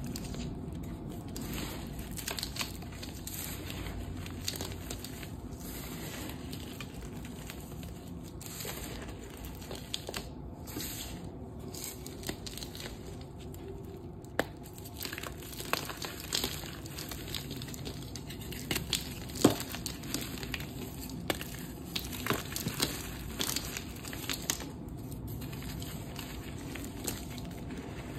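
Hands crumbling and squeezing black dyed gym chalk reforms into loose dusty powder: a steady soft grinding with scattered small crunches and crackles, sharper and more frequent in the second half.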